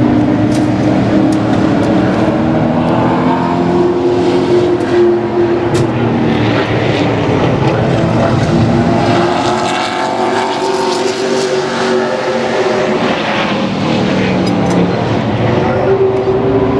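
Super late model race cars' V8 engines running at speed on the track during practice. Their pitch rises and falls as the cars come around, and the sound stays steady with no break.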